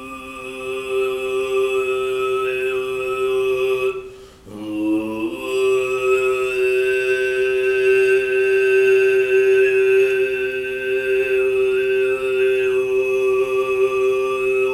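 Solo Tuvan throat singing: a man holds a steady low drone while a high, whistle-like overtone moves between a few pitches above it. About four seconds in, the voice breaks off briefly and comes back with an upward slide into the drone.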